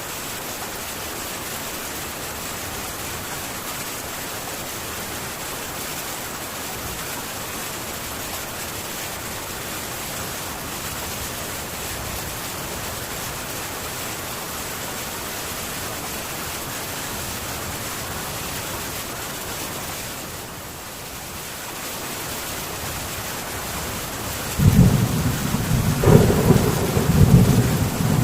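Heavy rain drumming steadily on a metal tin roof. About three-quarters of the way through, a loud, low rumble of thunder breaks in and keeps rolling, with sharper cracks.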